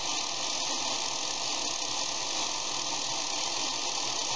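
Brand-new Harbor Freight budget angle grinder with a grinding wheel, running unloaded at full speed while it rests on the workbench: a steady, hissy whir from the motor and spinning wheel, its brushes still being broken in.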